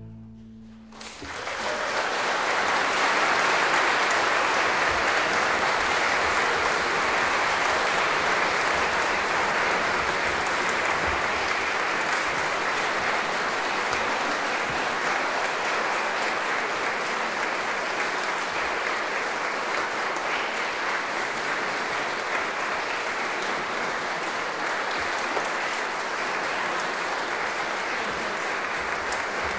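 The last chord of a string orchestra fades away in the first second, then a concert audience applauds steadily.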